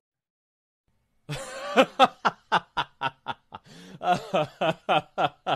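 A laughing sound effect dubbed onto the clip: a rapid string of short pitched 'ha' pulses, about four a second, starting a little over a second in after a moment of silence.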